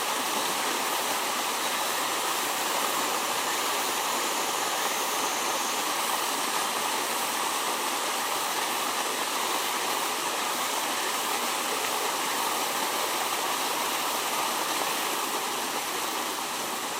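Water pouring steadily through a pond's drain outlet like a small waterfall: a continuous, even rushing.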